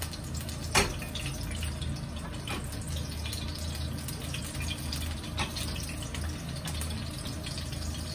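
Garlic frying gently in oil in a frying pan: a soft steady sizzle with scattered small crackles, and one sharper click about a second in. A low steady hum runs underneath.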